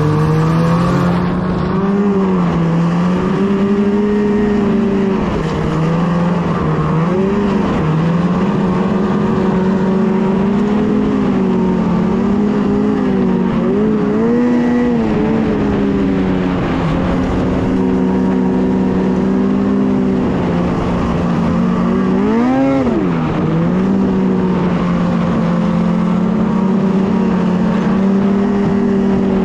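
Ski-Doo snowmobile engine running under way, its pitch rising and falling with the throttle; about two-thirds of the way in it drops off and revs sharply back up.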